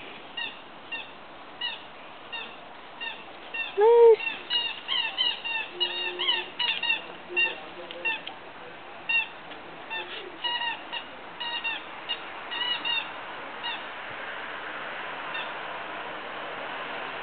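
Puppies yipping and squealing at play: a long run of short, high, falling yelps, coming thick and fast for a few seconds in the middle, then spacing out and fading near the end.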